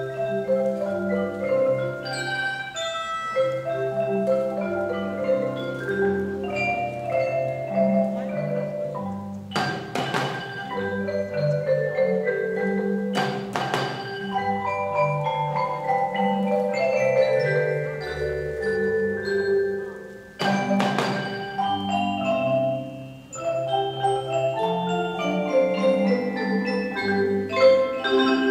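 Percussion ensemble playing a classical tune on marimbas, xylophone and other mallet instruments: a steady run of pitched mallet notes over low bass notes. Short clusters of sharp, noisy strikes cut in about ten seconds in, again around thirteen seconds, and around twenty-one seconds.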